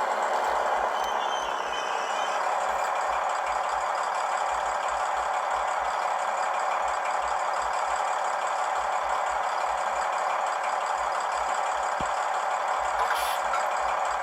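Diesel railbus engine sound from a LokSound V5 Micro decoder, played through a tiny sugar cube speaker in an H0-scale model, idling steadily with a thin, bass-less tone.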